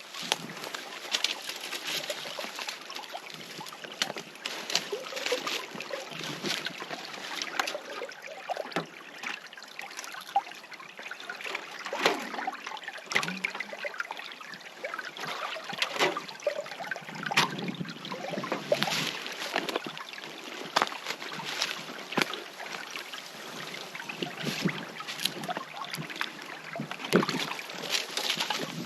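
Footsteps crunching through frozen snow: a run of irregular crunches and crackles.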